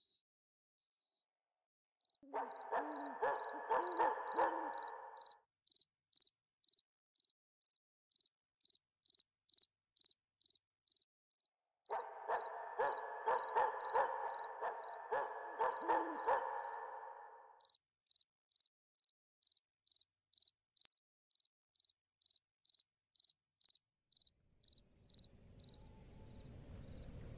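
A cricket chirping steadily, about two short high chirps a second. Twice it is overlaid for several seconds by a louder, lower, many-toned sound with rapid clicking. Near the end a wash of noise swells up.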